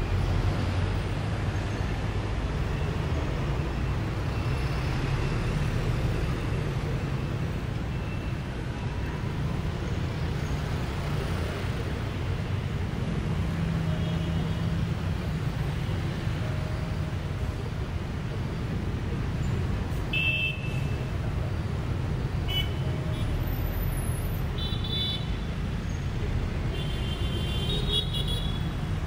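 Street traffic heard from the open top deck of a moving double-decker bus: a steady low rumble of engines and road noise, with a few short horn beeps in the second half.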